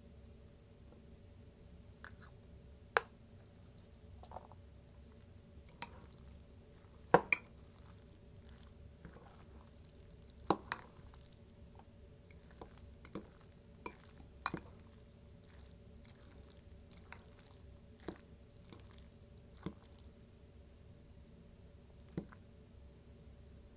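Close-miked eating sounds: about fifteen sharp clicks and taps scattered over a faint steady hum, the loudest a quick pair about seven seconds in.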